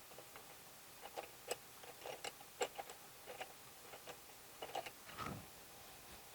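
A scatter of light clicks and taps, about a dozen, from small hard parts being handled, ending in one soft thump.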